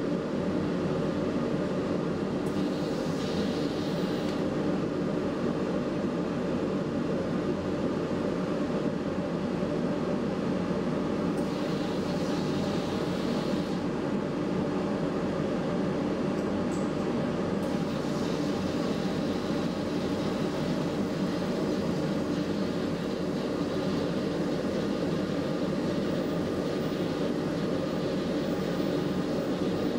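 Powder-coating booth's extraction fan running with a steady, even rush of air. A higher hiss, typical of the powder gun's air flow, swells briefly twice.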